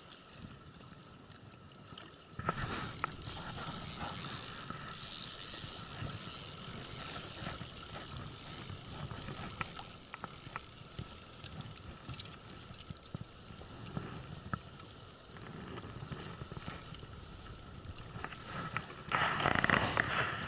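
Fishing reel being cranked, a steady gear whir with small clicks, starting about two and a half seconds in as a hooked bigfin reef squid is reeled up. Louder handling and scraping noises come near the end.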